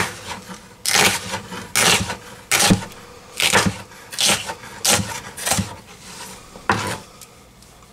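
Knife slicing bell pepper on a plastic cutting board: about ten chops, each a crisp cut ending in a knock on the board, roughly one a second, stopping shortly before the end.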